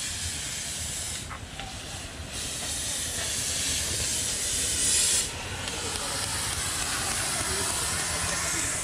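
Gas cutting torch hissing steadily as it cuts steel and throws sparks; the hiss swells loudest about five seconds in, then drops off sharply.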